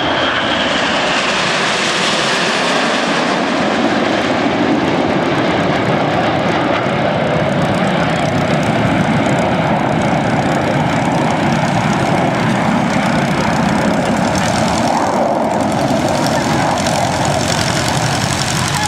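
Formation of BAE Hawk T1 jets flying past, their engines making a steady rush of jet noise. A high whine falls in pitch over the first couple of seconds.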